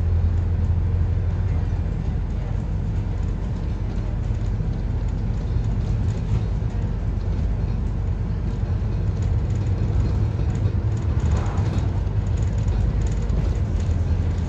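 Scania N230UD double-decker bus's five-cylinder diesel heard from inside the passenger saloon while under way: a steady low engine drone, the uploader's 'thrash', over road noise.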